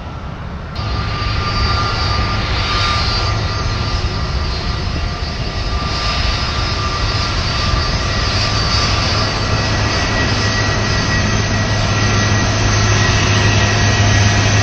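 Airbus A330's two Pratt & Whitney PW4168A turbofans running at taxi power: a steady jet whine with several fixed high tones over a low rumble. It comes in suddenly under a second in and grows slightly louder toward the end.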